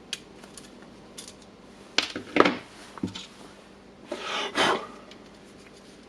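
Small hard parts of a hammer drill's carbon-brush holder being handled while a brush is swapped: light clicks and scrapes, with two louder clusters of clatter about two and four and a half seconds in.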